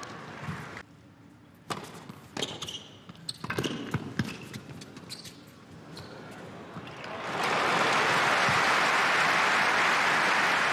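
Tennis ball struck back and forth by racquets in a short rally: a handful of sharp pops about a second apart. Then the crowd applauds loudly from about seven seconds in, cutting off abruptly at the end.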